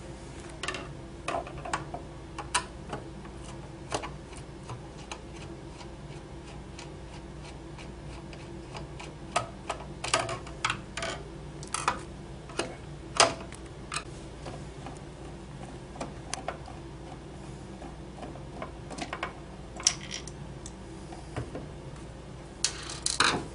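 Screwdriver clicking and ticking against screws as they are backed out of the plastic case of an electric cigarette-making machine, a scatter of irregular small clicks and taps over a steady low hum.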